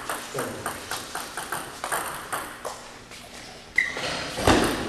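Table tennis ball clicking back and forth between paddles and table in a steady rally, about three clicks a second. Near the end comes a brief high squeak, then a louder noisy thump.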